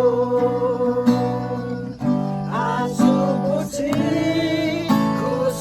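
Background music: a Nepali Christian worship song led by strummed acoustic guitar.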